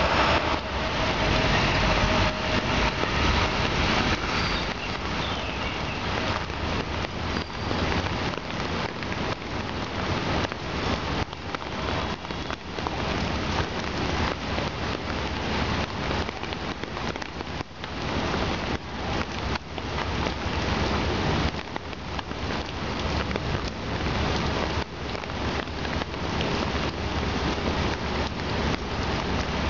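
Rain falling steadily onto the water of a swimming pool: a dense, even sound of many small drop impacts, a little heavier in the first few seconds.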